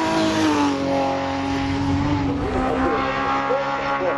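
Hill-climb race car engines under hard throttle. A BMW E36 passes with its engine note dropping in pitch as it goes by, then a second car's engine rises and falls repeatedly through its revs.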